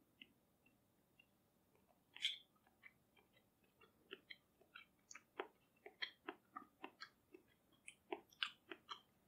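Faint chewing and mouth clicks of a person eating a mouthful of raw beef bone marrow, with one louder click about two seconds in and a run of small clicks from about four seconds on.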